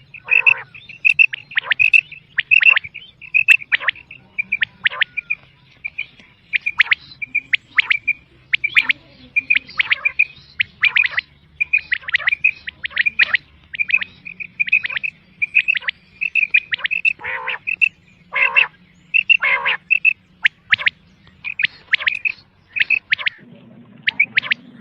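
Quail calls from a bater hunting-lure recording: short clear notes repeated in quick groups, mixed with harsher notes that sweep downward, over a faint low hum.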